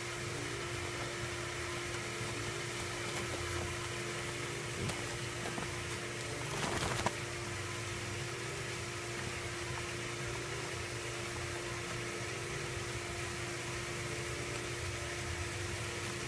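Steady mechanical hum with a constant tone under an even hiss. A brief rustle about halfway through as a shirt is pulled on over the head.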